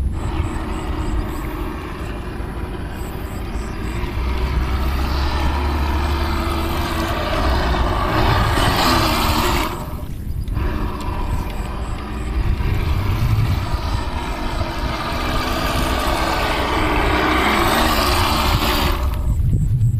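Radio-controlled speedboat's motor running at speed as the boat circles, with the hull hissing through the water. It swells louder twice, about nine and about eighteen seconds in, each time dropping off sharply just after.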